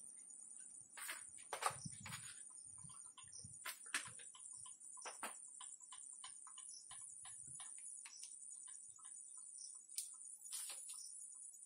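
Quiet room tone: a steady faint high-pitched hiss with scattered light clicks and ticks, a few of them sharper.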